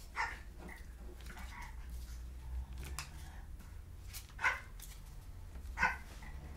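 A dog barking a few short, sharp times, with two clear barks in the second half.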